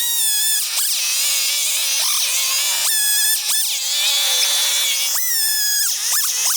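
Chainsaw running under load, plunge-cutting into a cedar log. The engine pitch sags several times as the chain bites into the wood and then climbs back.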